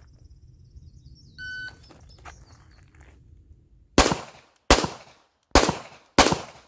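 A shot timer beeps once. About two and a half seconds later a handgun fires four shots in two pairs, the last one about 4.8 seconds after the beep, in a timed draw-and-fire string.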